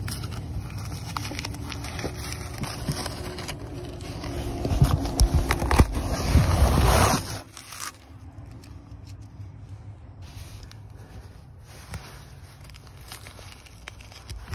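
Paper and masking tape rustling and scraping as they are handled and peeled back from the underside of a glued canvas patch. It is loudest about five to seven seconds in, then drops to quieter handling with a few small clicks.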